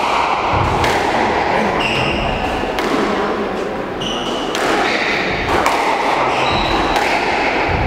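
Squash rally: the ball smacks off rackets and thuds against the walls and glass about once a second, with short high squeaks of court shoes on the wooden floor between strikes.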